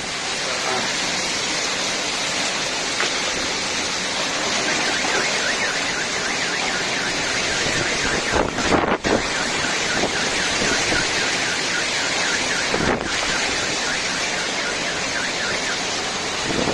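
Storm wind blowing hard over the microphone as a dense, steady rush of noise, with a car alarm faintly repeating beneath it.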